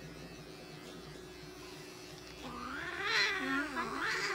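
A mixed-breed cat yowling while held down and clipped, one long wavering caterwaul that starts a little over halfway through and swells twice: the cat is protesting the restraint. The faint steady hum of small electric pet clippers runs underneath.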